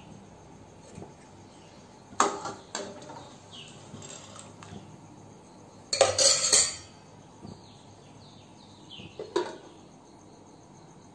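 Steel cooking pot and its metal lid clinking several times, with the loudest clatter about six seconds in as the lid goes onto the pot.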